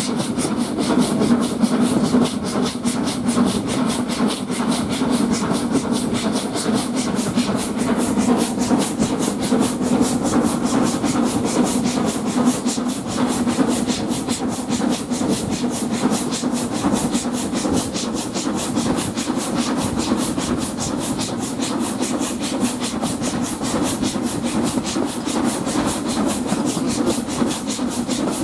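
S&DJR 7F 2-8-0 steam locomotive no 53808 working under steam, its exhaust beats coming rapid and even, together with the steady rumble of the coaches running on the track. Heard from an open carriage window.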